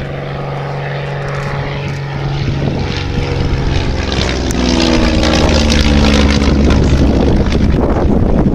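Ryan Navion's single piston engine and propeller on a low pass, growing louder as it comes in, with the engine note dropping in pitch as it goes by.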